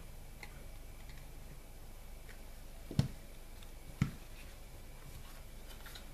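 A metal laptop HDD caddy holding a 2.5-inch hard drive being handled: a few faint small clicks, then two sharp knocks about a second apart as it is set down on the desk.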